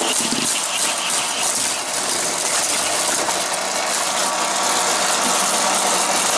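Hot Wheels Mega Loop Mayhem track set's battery-powered boosters running with a steady motor whir and hum. A fast rattle comes through in the first second or so.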